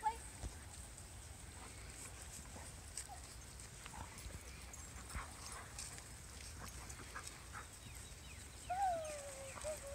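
A dog whining: a high, falling whine near the end, over faint scattered clicks.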